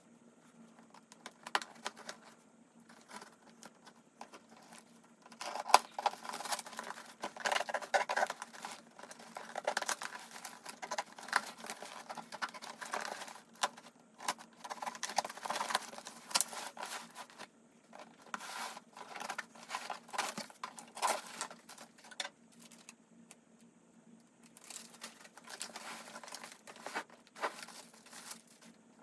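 Packaging being handled and opened by hand: crinkling, tearing and irregular taps and clicks. The sounds come in busy stretches with brief lulls.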